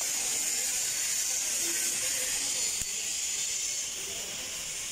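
TIG welding torch on a steel pipe joint, giving a steady high hiss.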